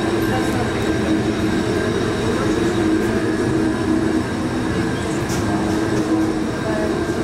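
Steady, even rumbling hum with a few faint held tones over it, unchanging throughout.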